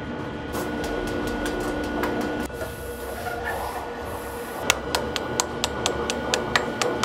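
Large metal-spinning lathe turning a big sheet-metal dish while a roller-tipped lever tool is pressed against it: a steady machine hum with ringing tones from the spinning metal, and from about two-thirds through, sharp regular ticks about four a second. The spinners judge the forming by this sound: clear is good, muddy is no good.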